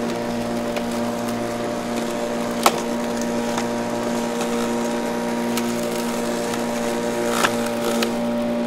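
Electric lawn mower running at a steady pitch, its motor and blade humming evenly. Sharp cracks cut through it: a loud one about two and a half seconds in, another near the end, and a few fainter clicks.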